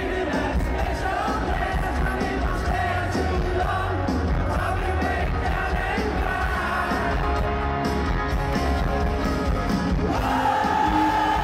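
Live rock band playing through a stadium PA, heard from within the crowd: a male lead vocal over heavy bass and drums, with a long held sung note near the end.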